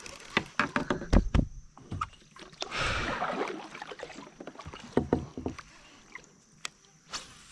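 Paddling a plastic kayak: a paddle blade swishes through the water about three seconds in, with scattered knocks and a heavy thump against the hull before it and a few more knocks after it.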